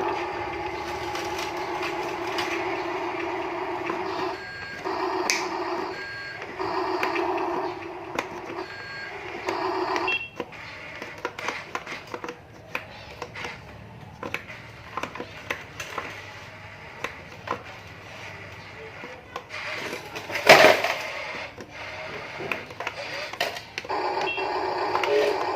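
Motor of a radio-controlled hydraulic excavator whining steadily, then cutting in and out three times. After that come scattered small clicks, with one sharp loud knock about 20 seconds in, and the whine starts again near the end.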